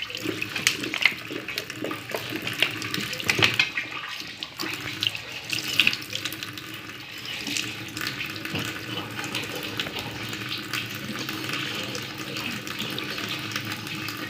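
Water running from a tap into a sink and splashing over hands and a glass jar as the jar is scrubbed with a sponge. A few knocks stand out in the first half.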